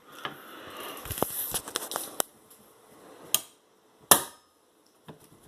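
Handling noise and sharp clicks as a cover is pressed back onto an Olympia Deluxe typewriter, with the loudest click a little after four seconds in as it snaps into place.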